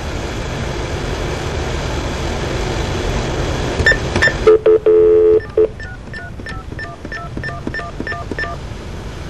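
Telephone line: a few seconds of open-line hiss, then two short beeps and a loud steady dial tone about a second long, followed by a quick run of about a dozen touch-tone (DTMF) digits as a number is dialed.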